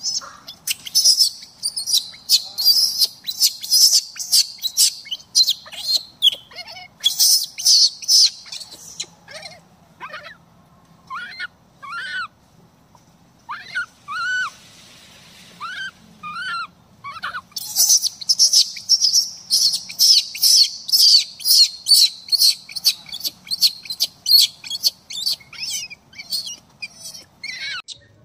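Newborn macaque screaming: long runs of rapid, shrill, very high-pitched cries, with a quieter stretch in the middle holding a few separate rising-and-falling squeals, the distress calls of an infant left on the ground.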